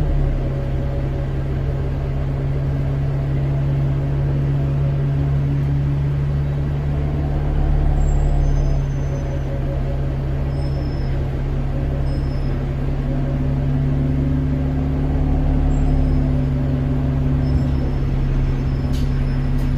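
Alexander Dennis Enviro400 double-decker bus's engine running with a steady low drone that swells a little about eight seconds in and again around fifteen seconds in. Faint short high-pitched squeaks sound now and then over it.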